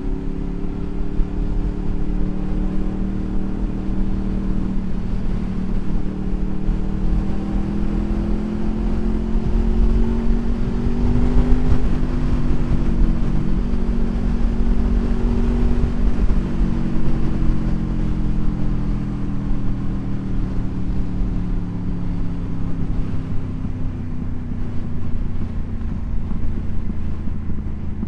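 Motorcycle engine running under way, with wind rumble on the microphone. The engine note climbs slowly, breaks off about twelve seconds in, then sinks gradually.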